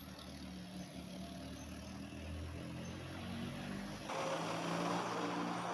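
A steady, low engine hum, as of a motor running, that gets louder from about four seconds in.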